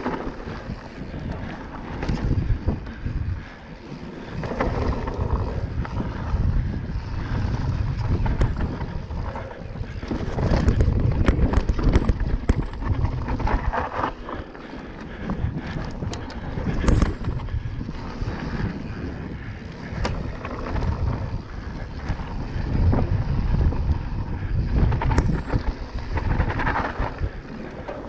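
Mountain bike descending a trail at speed: wind buffeting the camera's microphone and tyres rolling over gravel and rocks, with sharp knocks and rattles from the bike over bumps, several between about ten and seventeen seconds in.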